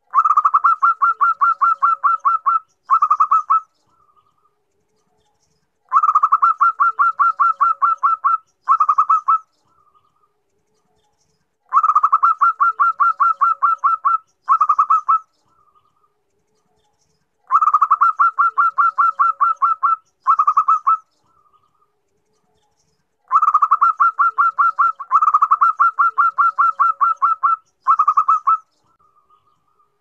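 Zebra dove (perkutut) cooing in five bouts about six seconds apart. Each bout is a rapid run of short staccato coos, about eight a second, then a brief pause, a shorter run and a faint single note. The uploader gives the call as a female calling to a male.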